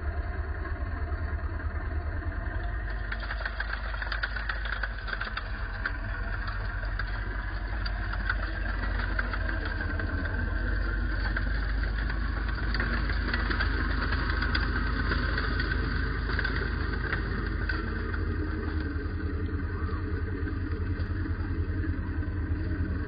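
Bergepanther's engine running at idle, a steady low hum, with a dense clattering rattle joining about three seconds in and thinning out later.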